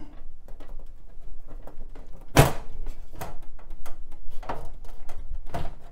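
Side panel of a large computer tower case being worked loose by hand to slide it off: a series of knocks and clicks as the panel shifts against the frame, the loudest a heavy thump about two and a half seconds in.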